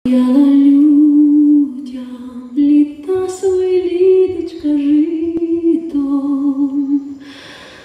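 A woman's voice singing a slow wordless melody in long held notes, without accompaniment, trailing off near the end.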